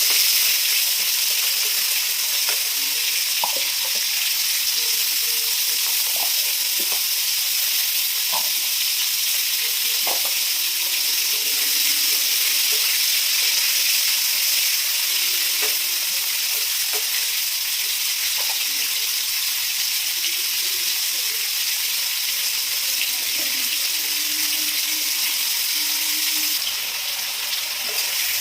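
Food frying in hot oil in a pan: a steady sizzle, with scattered light clinks of a spatula stirring.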